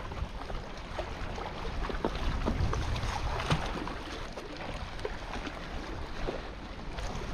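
Wind buffeting the microphone as a steady low rumble, with scattered light clicks and knocks at uneven intervals.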